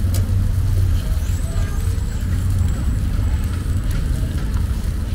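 Street traffic: a steady low rumble of vehicles, with a faint high whine briefly a second or so in.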